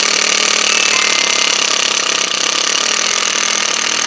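Cordless impact driver running steadily, driving a self-drilling Tek screw through a wooden board into steel. The screw's drill point is boring into the steel while its threads are already biting into the wood.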